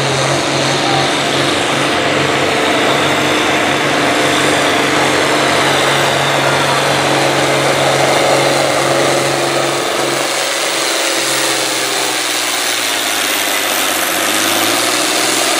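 Ford 9600 tractor's six-cylinder diesel engine running hard under full load as it drags the weight-transfer sled, loud and steady. After about ten seconds the deep low end drops away and the engine's pitch sags a little.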